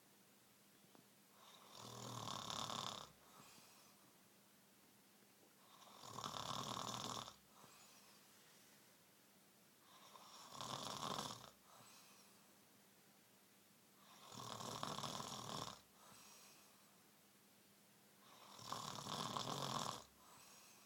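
Snoring in a slow, steady rhythm: five snores about four seconds apart, each lasting about a second and a half, with a faint breath after each.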